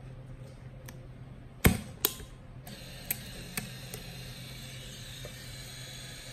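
Hasselblad XPAN II's film back snapping shut with two sharp clicks, then the camera's motor starting a steady whir as it winds the freshly loaded 35 mm roll, with a few lighter ticks in its first seconds.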